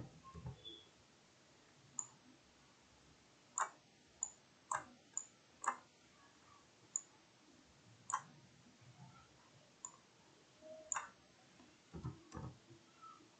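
Computer mouse buttons clicking: about a dozen short, sharp clicks at irregular intervals, some in quick succession, as on-screen components are selected and dragged into place.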